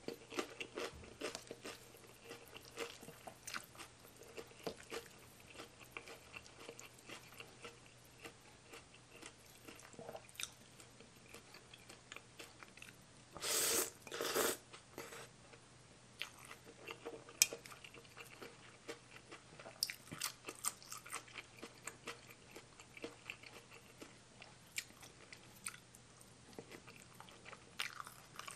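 Chewing and crunching of a spicy Thai mixed salad with raw vegetables, eaten by hand: many small, irregular crunchy clicks, with two louder bursts about halfway through.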